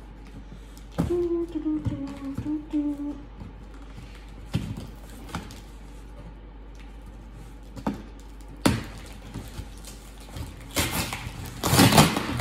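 Packing tape being picked at and peeled off a cardboard box: scattered fingernail clicks and scratches on the cardboard, then the tape tearing loose in loud rasping rips near the end, the loudest part. A short low hum is heard about a second in.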